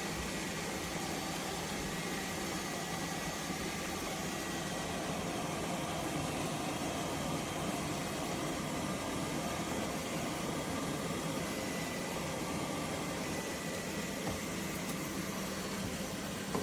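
LEFANT M320 robot vacuum running, a steady whirring hiss from its suction fan with a faint high whine.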